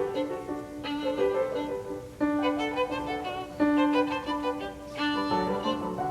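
Background music carried by a violin, playing a melody in short notes over a sustained low note.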